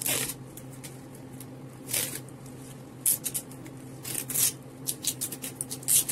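Tape pulled off its roll in short rasping strips and wound around a bundle of artificial flower stems to bind the bouquet. The pulls come singly at first, then faster and closer together from about halfway through.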